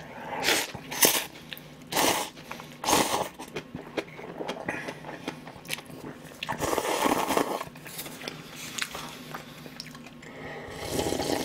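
A person slurping instant cup-ramen noodles and chewing: several short slurps in the first few seconds, a longer slurp about seven seconds in, then sipping broth from the cup near the end.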